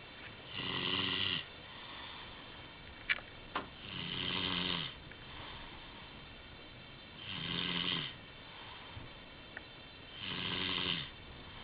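A sleeper snoring: four loud, rasping snores about three seconds apart, with quieter breaths between them.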